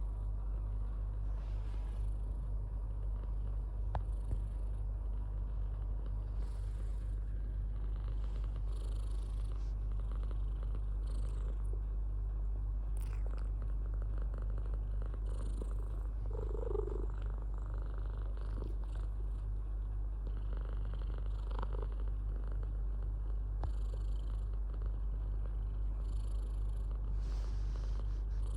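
Domestic cat purring steadily, a continuous low rumble, with a short higher-pitched sound about two-thirds of the way through.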